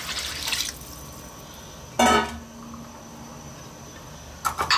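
Water poured from a bowl into a pot of chopped vegetables, rice and pasta, stopping within the first second. About two seconds in, a single plucked musical note sounds and rings on steadily for a couple of seconds.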